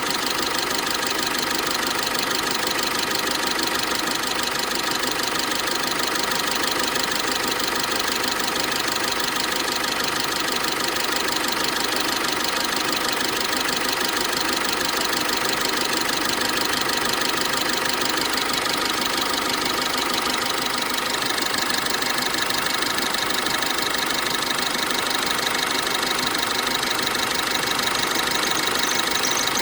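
GAZelle van's Cummins diesel engine running steadily, its tone shifting slightly about two-thirds through, with a high thin tone coming in at the very end.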